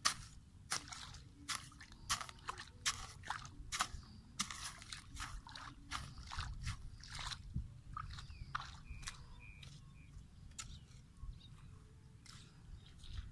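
A hoe chopping again and again into wet clay soil and shallow muddy water, each strike a sharp crunch with a splash, about one to two a second; the strikes thin out after about eight seconds.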